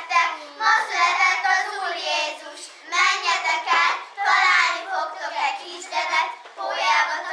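A small group of young children singing together, in phrases broken by short pauses for breath.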